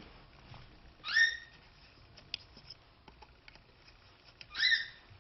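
Faint light clicks of a metal loom hook against plastic knitting-loom pegs, with two short rising squeaky chirps about three and a half seconds apart.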